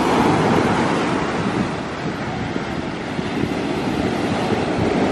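Shorebreak waves breaking and washing up a sandy beach, with wind rumbling on the microphone.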